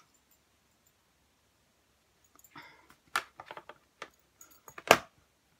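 Almost silent at first, then from about halfway a quick run of small clicks and taps, with one sharp, loud knock near the end.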